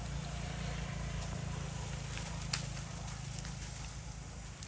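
Macaque eating a piece of soft fruit: faint chewing and smacking with scattered small ticks and a sharper click about two and a half seconds in and another at the end, over a steady low hum.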